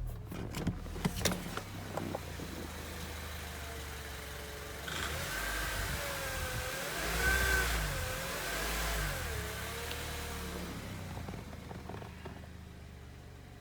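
Honda Accord Euro's power steering pump whining over the idling engine, the whine wavering up and down in pitch and loudest about halfway through: the noise that persists after a new pump and o-rings were fitted. A few sharp clicks come in the first couple of seconds.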